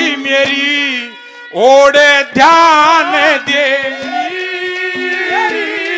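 Male singer performing a Haryanvi ragni into a microphone, backed by a steady held instrumental tone and regular hand-drum strokes. About one and a half seconds in the sound dips briefly, then a loud sung phrase follows.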